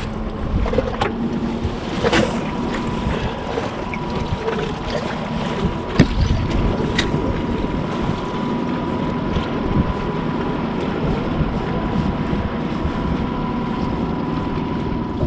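Wind buffeting the microphone on an open boat, with a thin steady whine and a few sharp clicks, the strongest about two and six seconds in.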